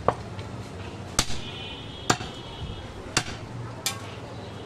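A heavy butcher's knife chopping goat meat on a wooden stump block: five sharp chops at roughly one a second, each a hard knock of blade through meat into wood.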